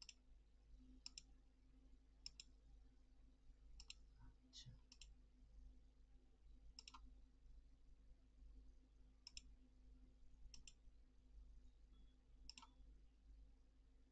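Faint computer mouse button clicks, about ten spread irregularly, each a quick pair of ticks, over a low steady hum.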